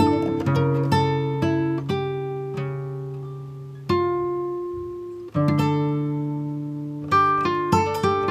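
Background music on plucked acoustic guitar: single notes and chords picked and left to ring out, with fresh chords struck about four seconds in and again just after five seconds.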